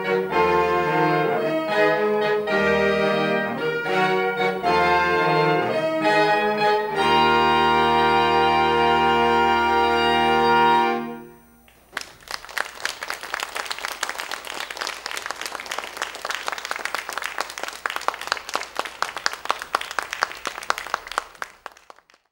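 Saxophone ensemble playing the closing bars of a piece, ending on a long held chord that cuts off about eleven seconds in. After a brief silence, audience applause starts and fades out near the end.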